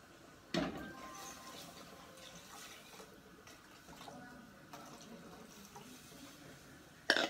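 Water poured from a glass jug into a stainless steel saucepan, a steady splashing pour that starts suddenly about half a second in. A short, louder sharp sound comes near the end.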